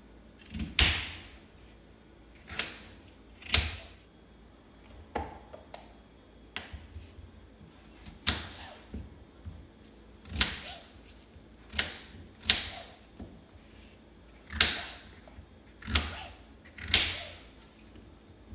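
Kitchen knife chopping peeled raw potatoes into chunks on a wooden board: about a dozen sharp chops at an uneven pace.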